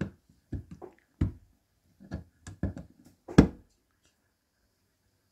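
Pliers clicking and tapping against the thin metal casing of a small geared turntable motor as its edge is bent to hold the top cover: an irregular run of about a dozen sharp clicks, the loudest about three and a half seconds in.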